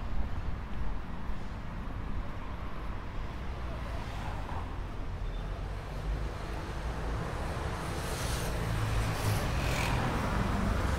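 City street traffic noise: a steady rumble of cars on the road, growing louder near the end as traffic comes closer.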